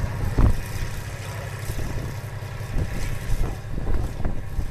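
Tractor engine running steadily at low speed, heard from a towed seat, with a low chugging rumble. Several knocks and bumps cut through it, the loudest about half a second in.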